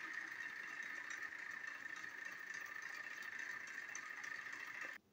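Two battery-powered TrackMaster toy train engines running their small electric motors against each other, a steady high-pitched motor whine with the engines barely moving. The whine cuts off suddenly just before the end.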